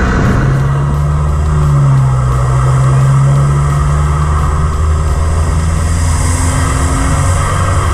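Audi S3 8V's turbocharged four-cylinder engine pulling at a steady road speed, over tyre roar and wind noise. The engine note drops a little about one and a half seconds in, then holds steady.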